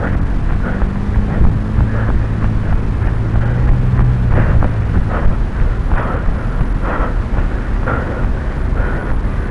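Wind buffeting and handling noise on a camera microphone carried by a running person, with regular jolts about twice a second. A low steady hum fades out about halfway through.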